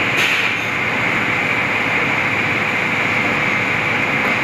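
Steady hiss of a commercial kitchen's extraction and ventilation system running, with a faint click about a quarter second in.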